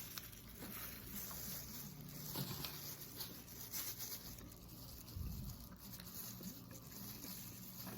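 Quiet eating sounds: close-up chewing with scattered small clicks and soft mouth noises.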